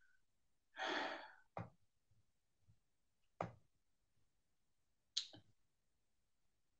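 A breath let out like a sigh about a second in, then three short clicks about two seconds apart, computer mouse clicks as a presentation's slide menu is opened.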